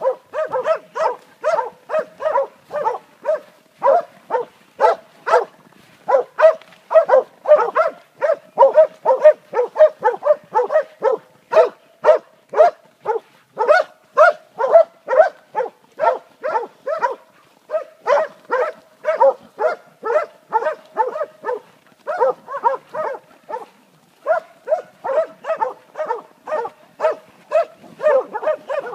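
Spitz-type hunting dogs bay-barking at wild boars: an unbroken run of sharp barks, about two to three a second, with a couple of short pauses. This is the hound's standing bark (ståndskall), used to hold game at bay.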